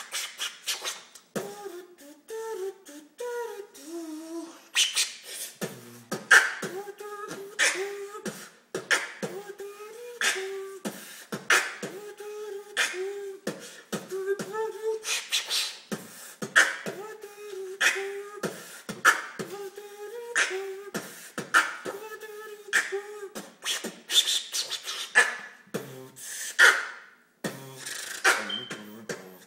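Beatboxing into a cupped hand: sharp snare-like clicks about once a second over a hummed tune that repeats in short phrases.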